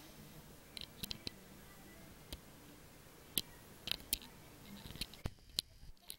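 Scattered sharp clicks, about ten in six seconds, over a faint low snore from a sleeping Jack Russell–Chihuahua puppy.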